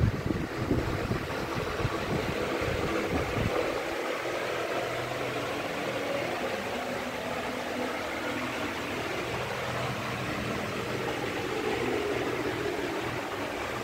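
Steady hum and hiss of a machine-like background noise, with low buffeting on the microphone for the first few seconds that then stops.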